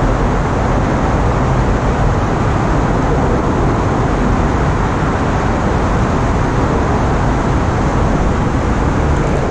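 Steady, loud rumble of road traffic on the overpass bridges directly overhead, heard from beneath the decks.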